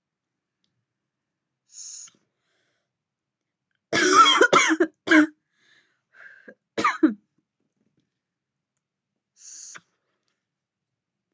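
A woman coughing from inhaled vapour: a quick fit of three harsh coughs about four seconds in, then a fainter cough and one more sharp cough near seven seconds. Short soft hisses come before and after the coughing.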